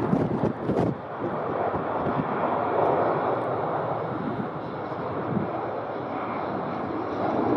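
Jet airliner engines, a steady broad noise with no tones that stand out, and some crackling in the first second.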